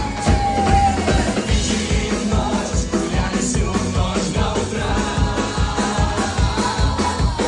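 A live cover band playing an upbeat pop-rock song, with a steady drum beat and a held sung note that ends about a second in.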